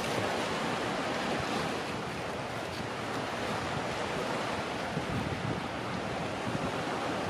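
Steady wash of sea surf, with wind on the microphone.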